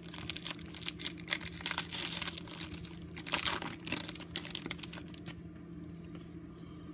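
Foil wrapper of a trading-card pack crinkling as it is torn open and the cards are slid out. The crackling is loudest around two and three and a half seconds in and dies down after about five seconds, leaving a steady low hum.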